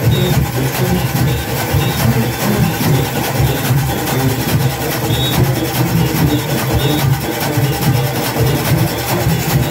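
Junkanoo band rehearsing: drums pounding steadily under a dense, rapid clatter of cowbells, with brief high whistle or horn notes.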